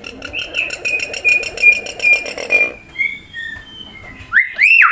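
Hill myna whistling: a quick run of short repeated high notes for nearly three seconds, then a few gliding whistles, and near the end loud whistles that rise and fall.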